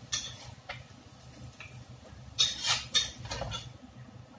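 Metal spatula scraping and knocking against a wok as cooked food is scooped out onto a plate: one scrape near the start and a quick run of four in the second half.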